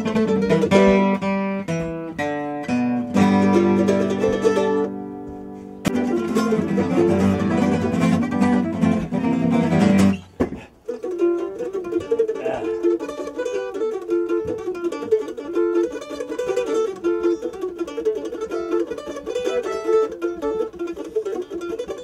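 Acoustic picking on an F-style mandolin with an acoustic guitar. About halfway through, the music cuts off abruptly and a different, lighter passage starts, with the mandolin's notes to the fore.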